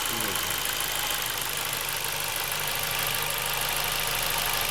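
Warm Ford Focus II engine idling steadily, with a dull, hollow drone 'like in a pipe' that seems to come from underneath, around the middle of the car. The owner cannot tell what causes it.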